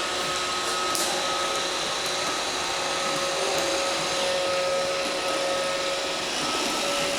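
Roomba robot vacuum running: a steady motor whir with a thin, steady hum over it.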